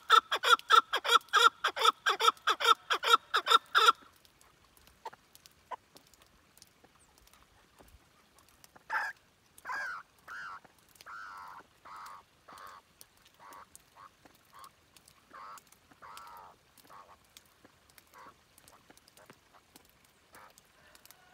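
Chukar partridge calling: a fast, even run of loud clucking notes, about four a second, that stops about four seconds in. After a pause, slower single notes come about once a second from about nine seconds on, loudest at first and fading toward the end.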